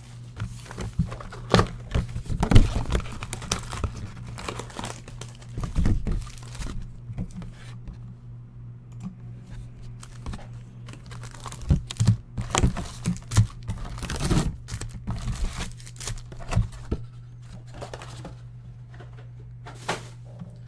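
Trading card hobby box being opened by hand: cardboard and wrapping tearing, foil packs crinkling, and knocks as packs are pulled out and set down, coming in irregular clusters. A steady low hum runs underneath.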